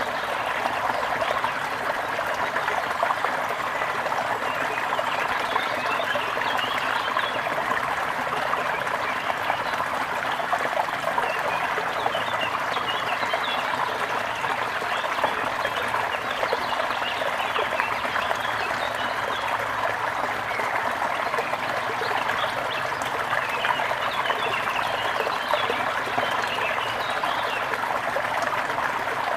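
Gentle river flowing with a steady babble, with small birds chirping in clusters over it.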